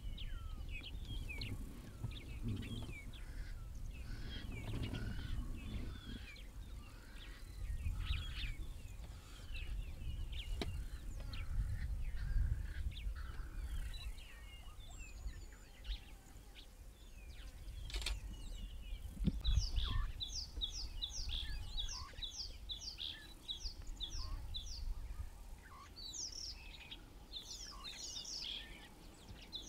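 Several birds chirping and calling. From about twenty seconds in, one of them repeats a quick run of short high notes, about two a second. A gusty low rumble runs underneath.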